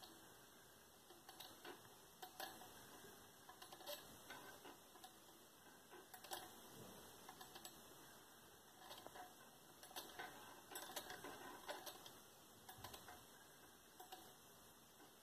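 Homopolar motor running: a copper wire frame spinning on an AA battery set on a disc magnet, its lower ends rubbing round the magnet with faint, irregular ticks and scrapes.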